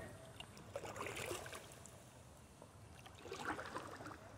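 Faint kayak paddle strokes: water splashing and dripping off the blade in two short spells, about a second in and again near the end.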